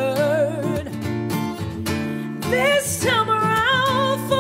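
Strummed acoustic guitar with a woman singing long, wavering held notes without words, a rising note about halfway through leading into a higher held note.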